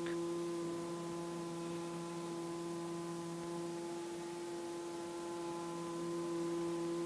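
A steady, unchanging pitched hum with several evenly spaced overtones, which cuts off abruptly at the end.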